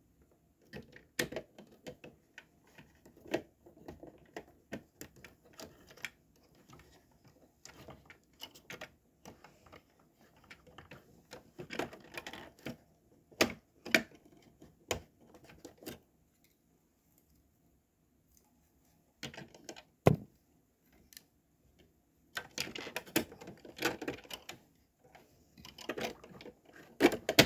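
Plastic Lego pieces being handled and pressed together: irregular sharp clicks and small rattles, with a few seconds of quiet a little past the middle.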